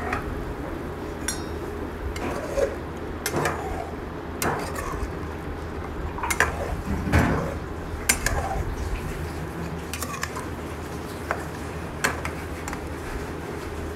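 Metal fork clinking and scraping against the side of a metal cooking pot at irregular intervals, about ten knocks in all, as pieces of boiled mutton are prodded to test whether they are tender. A steady low hum runs underneath.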